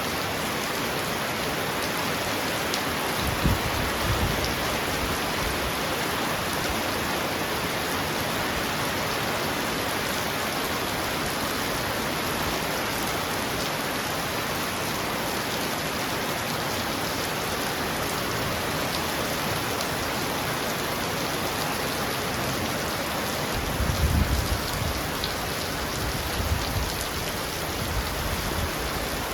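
Heavy rain pounding on a roof in a steady hiss. Low rumbles of thunder come through about four seconds in and again from about 24 seconds in.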